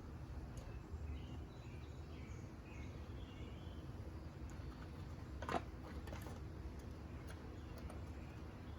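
Steady low background hum with a few faint bird chirps, and one sharp click about five and a half seconds in.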